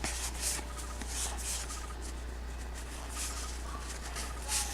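Trading cards being slid one by one off a stack, a soft papery swish every half second or so, over a steady low hum.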